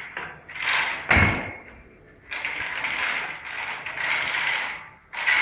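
Hand-operated chain hoist being worked, its ratchet clicking and chain rattling in several spells of about a second each, with one heavy clunk about a second in.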